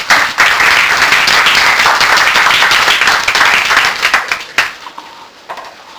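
Audience applauding, many people clapping together; the applause dies away about four and a half seconds in, leaving a few scattered claps.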